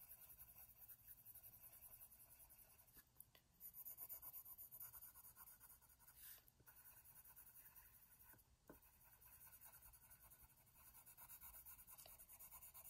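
Faint scratching of a colored pencil shading back and forth on paper in quick, even strokes, a little louder about four seconds in.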